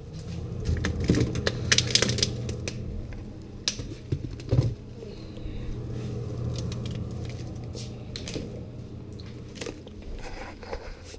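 Freezer humming steadily with its door open, while plastic-wrapped frozen packages crinkle and bottles knock as bottled water is taken out. The hum fades near the end.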